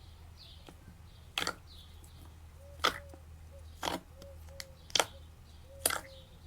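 Slime being worked by hand, giving five sharp pops about a second apart, with small squelches between them.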